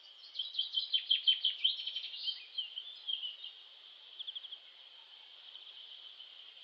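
Birds chirping, with a run of short falling calls and a quick trill about four seconds in, over a steady high insect buzz.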